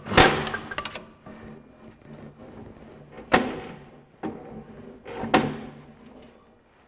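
A hand tool knocking against the metal of a Ferguson TE20 tractor being split at the bellhousing: three sharp metallic clanks, each ringing briefly, the first and loudest right at the start, then about three seconds in and about five seconds in, with a few lighter clicks between.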